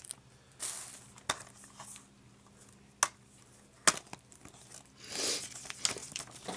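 Plastic shrink wrap crinkling in short rustles as a Blu-ray case is handled, with a few sharp plastic clicks as the case is snapped open, the two loudest about a second apart midway.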